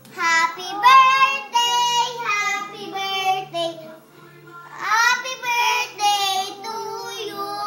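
Two young girls singing together in high children's voices, in phrases with a short pause about halfway through.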